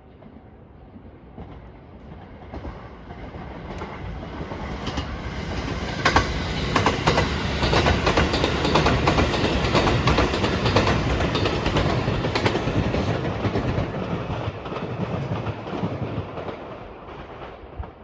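A passenger train passing over a level crossing. Its noise builds over about six seconds, the wheels clatter rapidly over the rail joints as it goes by, and it then fades away.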